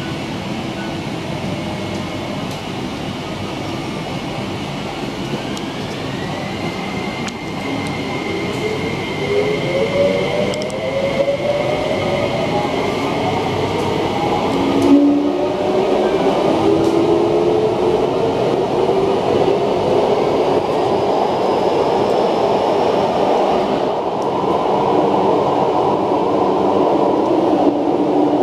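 SP1900 electric multiple unit heard from inside the car as it pulls away and accelerates. The traction motors give a whine in several tones that rise in pitch, and this gives way to a louder, steady running rumble in the tunnel.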